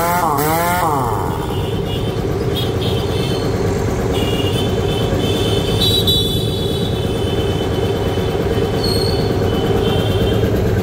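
Air compressor with a twin-piston pump and a 2 HP single-phase Godrej motor running steadily with a low hum. A high whine comes and goes over it from about two seconds in. A wavering siren-like tone fades out about a second in.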